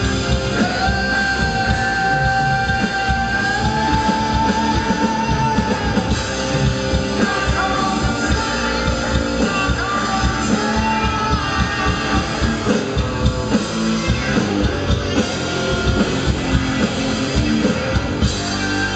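Rock band playing live, heard from the crowd: electric guitar, bass and drums, with long held notes over the first few seconds.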